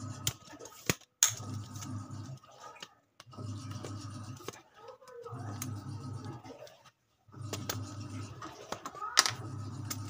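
A camera phone on a tripod being handled and adjusted: scattered sharp clicks and knocks, the loudest about nine seconds in, over a low hum that drops out a few times.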